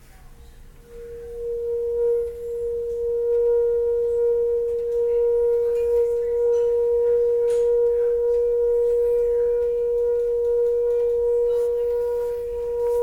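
General Electric natural gas water heater giving off a steady, one-pitched squeal that starts about a second in, swells within a second, then holds.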